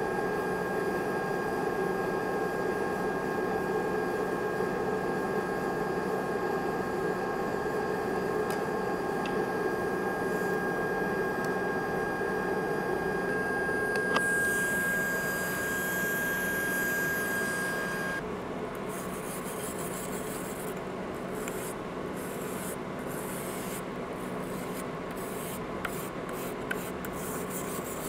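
DC TIG welding arc on thin aluminum under helium shielding gas: a steady hissing buzz with a thin high whine. The arc breaks about halfway through, the whine carries on a few seconds more and then cuts off, and a quieter, uneven rustle follows.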